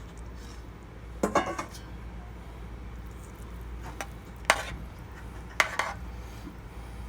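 A metal utensil clanking against a cooking pot, a handful of sharp knocks a second or more apart.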